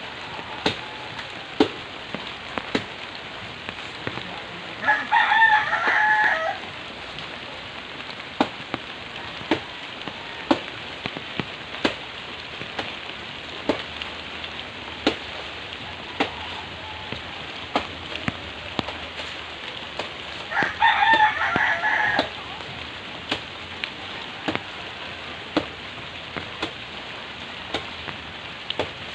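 Steady rain with frequent sharp drips striking leaves, and a rooster crowing twice, about five seconds in and again about twenty-one seconds in; the crows are the loudest sounds.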